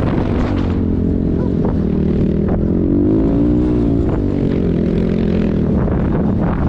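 Kayo K4 enduro motorcycle's 250 cc single-cylinder four-stroke engine running under way, its pitch rising and falling again with the throttle about three to four seconds in.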